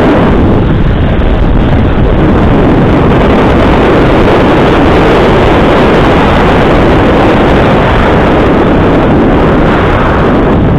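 Loud, steady wind rush buffeting a cheap action camera's microphone while moving fast downhill.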